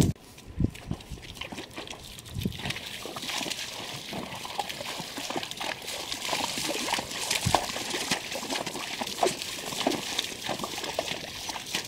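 Mules' hooves wading and splashing through a shallow creek: a run of uneven sloshes and splashes that starts a couple of seconds in and keeps going.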